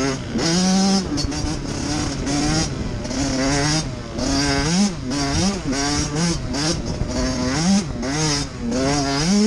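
Dirt bike engine under way, revving up and down over and over as the rider works the throttle and shifts gears, its pitch climbing and dropping every second or so.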